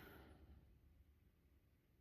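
Near silence: room tone with a faint low hum, and a soft hiss fading out in the first half second.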